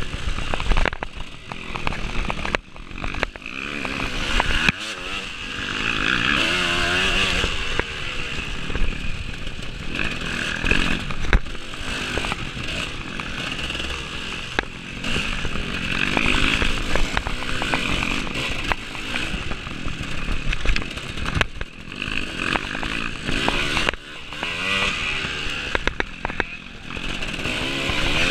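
Off-road racing motorcycle engine revving up and down over and over as it is ridden hard, with frequent knocks and rattles.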